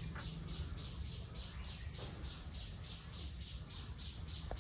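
Outdoor ambience of rhythmic high chirping, about four chirps a second, over a steady low hum. It cuts off suddenly at the end.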